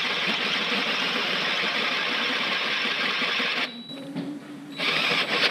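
Power drill with a sharp bit cutting steadily into a Renault Clio 182's engine block. It stops about three and a half seconds in, and the drill starts again briefly near the end.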